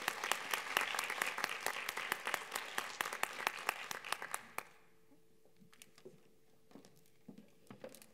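A hall audience applauding, a dense spell of clapping that fades out about four and a half seconds in, followed by a few scattered knocks.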